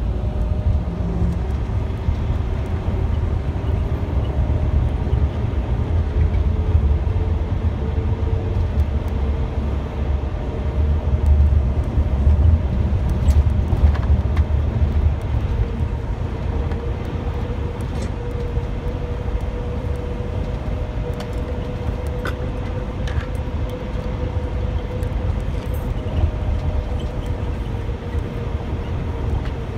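Intercity motorcoach under way, heard from inside the cabin: a steady low rumble of engine and tyres, with a thin whine that slowly rises in pitch over the first half and then holds steady.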